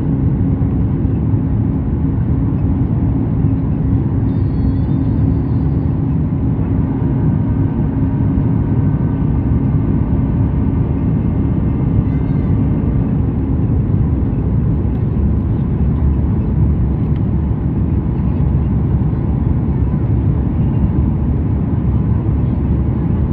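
Cabin noise inside a Boeing 737 MAX 8 in flight: the steady low rumble of its CFM LEAP-1B engines and the airflow past the fuselage, with a steady drone in it that fades out about two-thirds of the way through.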